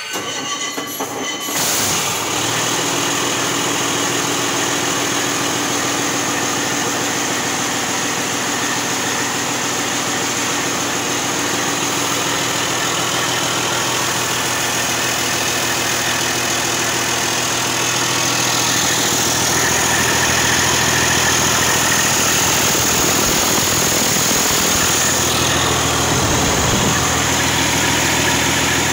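Detroit Diesel Series 60 12.7 L inline-six diesel engine on a test stand, cranking briefly and catching about a second and a half in, then running steadily. It gets a little louder about two-thirds of the way through.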